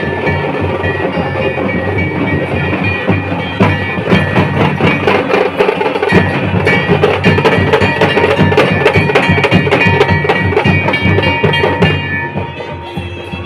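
Dhol drums beating steadily with a shehnai playing sustained notes over them. The drumming thins and the sound drops a little near the end.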